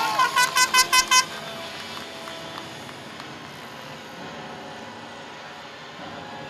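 A horn sounds about six quick toots in the first second. After that comes the quieter, steady whine of a radio-controlled helicopter flying overhead.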